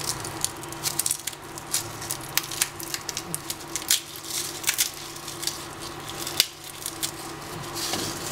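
Mustard seeds crackling in hot sesame oil in a pan: irregular sharp pops and ticks all through, over a steady low hum.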